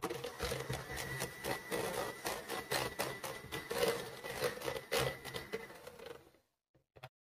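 Electric hand mixer running, its twin beaters whipping softened butter with cooled custard base in a plastic jug: a steady whine with many quick ticks. It stops about six and a half seconds in, followed by two short clicks.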